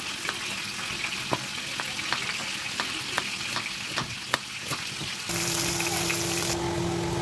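Knife slicing a red onion on a plastic chopping board, a sharp tap at each stroke, about two or three a second, over a soft hiss. About five seconds in, this cuts to fish heads frying in oil: a louder, steady sizzle with a low hum under it.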